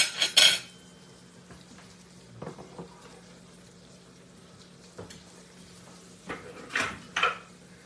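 Chicken livers deep-frying in hot oil, a faint steady sizzle under a low hum. Two sharp metal clinks come right at the start, a few faint ticks follow in the middle, and a few louder clatters come near the end as the fried pieces are handled.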